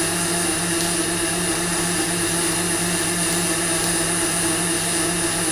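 Robotic MIG arc welding: the welding arc gives a steady, even hiss over a constant low hum, with no breaks while the torch runs along the seam.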